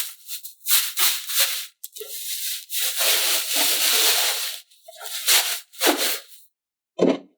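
A series of irregular rustling and rattling bursts of handling noise, breaking off briefly and returning for one short burst near the end.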